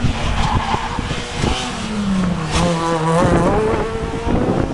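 Rally car engine running hard on a special stage. Its pitch drops about two seconds in, then climbs again as it revs back up. There are sharp cracks throughout.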